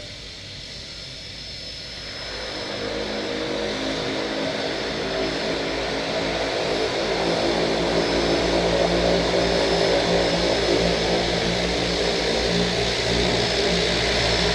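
An engine running steadily, growing louder over the first several seconds and then holding.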